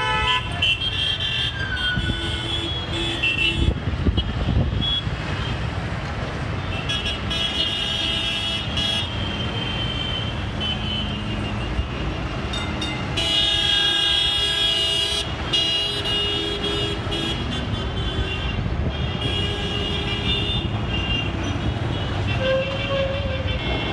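Dense city street traffic: a steady rumble of engines and tyres with car and bus horns honking on and off, often several at once, the longest run of honking near the middle.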